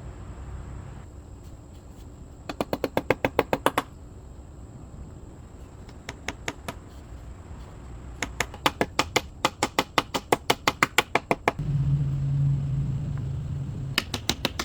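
Rapid ratchet-like clicking in several runs of about ten clicks a second, with a short low steady hum between the last two runs.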